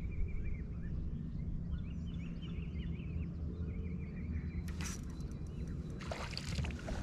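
Small birds chirping in short repeated trills over a steady low rumble, with two brief rustling sounds near the end as the fishing rod is worked.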